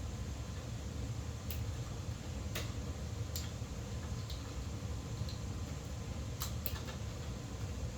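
Several irregular sharp clicks of wire cutters snipping and handling copper electrical wires, as the white neutral wires in the box are trimmed to the same length, over a steady low background hum.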